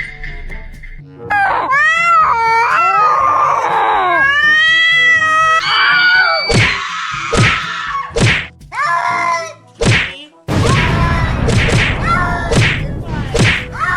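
A string of meme sound effects: wailing, gliding cries for the first several seconds, then a dense flurry of smacks and thuds near the end.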